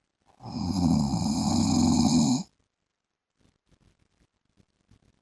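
A man snoring in his sleep: one loud snore about two seconds long, starting just after the beginning, then a pause of about three seconds before the next breath.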